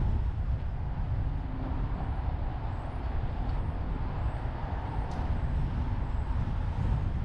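Steady low road and wind rumble of a car driving through city traffic, picked up by a camera mounted on the outside of the car. A single sharp click about five seconds in, with faint high chirps here and there.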